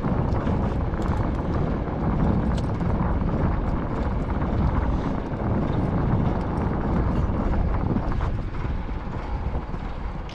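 Steady rumble of a boat underway, with wind buffeting the microphone.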